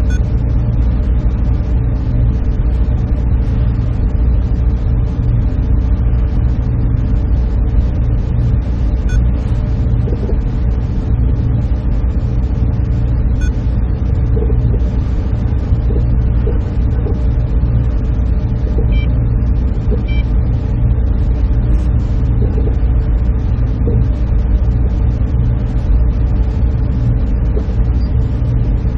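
Steady drone of a server room's machines and cooling running, strongest in a deep, even hum, with faint short tones now and then.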